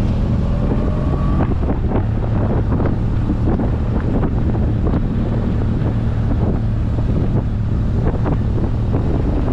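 Motorcycle engine running at a steady speed on the move, a steady low hum under heavy wind noise on the microphone.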